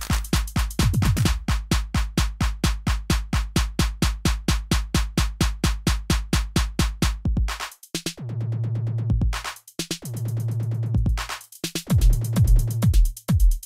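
Electronic background music with a fast drum-machine beat and a deep bass line. The beat breaks off about halfway through for a few held bass notes with short gaps, and comes back near the end.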